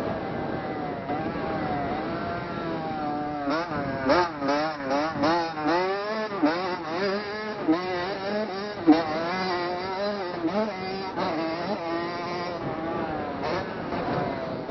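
Dirt bike engine being ridden hard, its pitch rising and falling about twice a second through the middle as the throttle is opened and shut, steadier at the start and near the end. A few sharp knocks come in among the revving, the loudest about nine seconds in.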